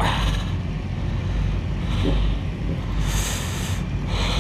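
Motorcycle engine running with a steady low rumble, with short bursts of hiss over it, the loudest about three seconds in.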